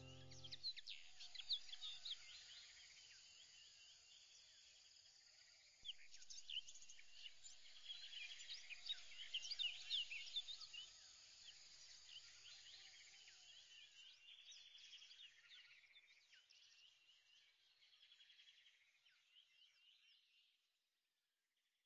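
Faint chorus of many small birds chirping, with dense overlapping short calls that swell in the middle and fade out near the end.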